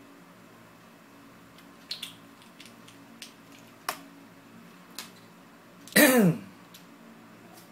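A few faint sharp clicks as the metal vape atomizer is handled, then, about six seconds in, a man clears his throat once, short and loud, his voice falling in pitch.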